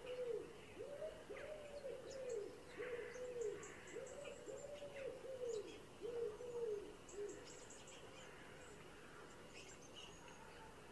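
A bird's low cooing notes, repeated about twice a second in a steady run that stops about seven seconds in, with faint high chirps of small birds behind.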